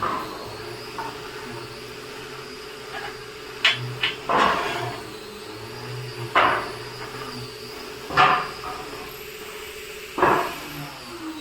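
Four heavy knocks on wood, about two seconds apart, with two sharp lighter clicks just before the first, over a steady machine hum.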